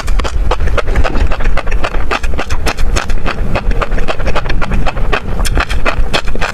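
Close-miked chewing of crunchy tobiko (flying fish roe): the eggs pop and crackle in rapid, irregular clicks, over a low rumble.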